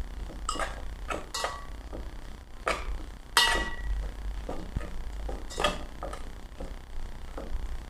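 Metal spoon clinking against a dish while eating, about five sharp clinks with a short ring, the loudest a little past three seconds in.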